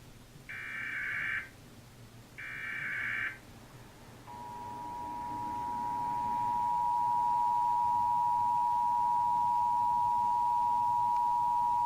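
Emergency Alert System test tones. Two short, buzzy digital data bursts (SAME tones) come about two seconds apart. Then, about four seconds in, the two-tone EAS attention signal begins, swells, and holds steady.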